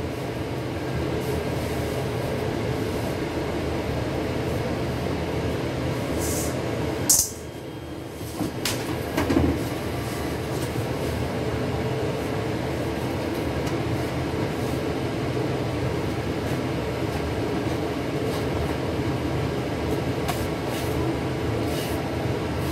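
Steady mechanical drone of commercial kitchen equipment running, with a few light clicks and knocks on the counter. The drone drops out briefly about seven seconds in.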